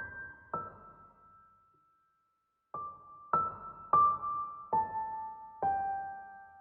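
Slow background piano music: single soft notes struck one after another in a mostly falling line, each left to ring and fade, with a pause of about a second and a half before the notes resume.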